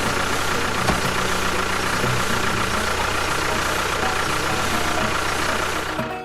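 An engine running steadily at idle, then cutting off about six seconds in.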